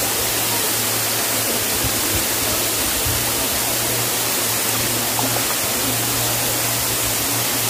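Steady rush of a waterfall's falling water, an even hiss with no breaks.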